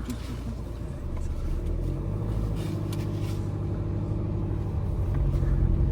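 Tata Nexon's 1.5-litre four-cylinder turbo-diesel engine running steadily, growing gradually louder toward the end.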